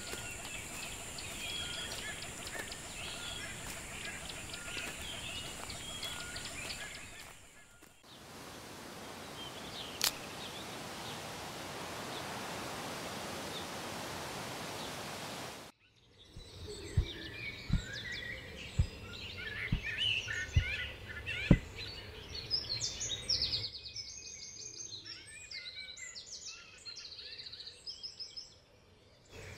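Jungle ambience of many small birds chirping, at first over a steady high tone. About eight seconds in, this gives way to an even rushing hiss that cuts off abruptly; then the chirping returns with a few sharp low thuds, and quicker, higher chirps come in near the end.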